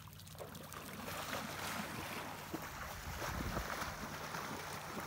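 Water splashing and sloshing in shallow lake water as a man wades quickly through it with a puppy paddling at his legs, a run of irregular small splashes.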